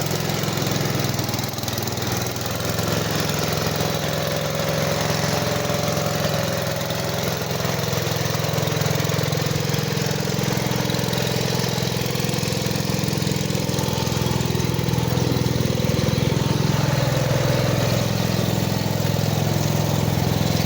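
Engine of the towing vehicle running steadily with the throttle open as it pulls the dead riding mower out on a rope, growing a little louder in the second half.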